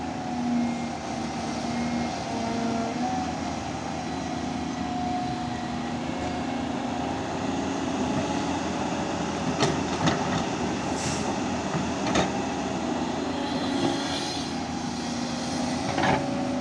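Diesel engine of a Volvo construction machine running steadily under work, with a few sharp metallic knocks in the second half.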